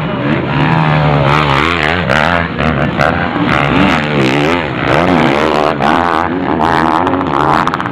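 Several MX1 motocross bikes' engines revving over one another on the track, their pitch rising and falling again and again as the riders work the throttle.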